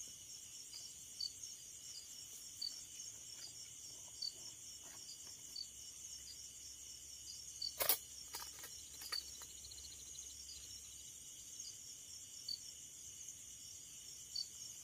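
Steady chorus of crickets and other night insects, with a pulsing chirp about twice a second. About eight seconds in comes a single sharp snap of a slingshot shot, followed by a few faint ticks.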